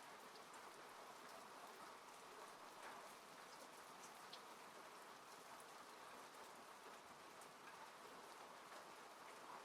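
Faint steady rain falling on a car, heard from inside, with scattered light ticks of single drops.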